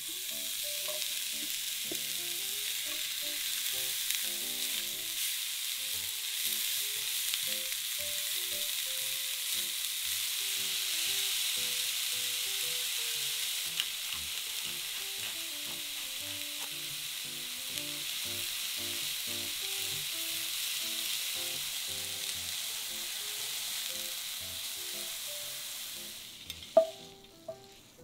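Sliced onion, carrot and shredded cabbage sizzling steadily as they are stir-fried in a frying pan, cooked down until wilted. The sizzle fades out near the end, followed by a sharp knock.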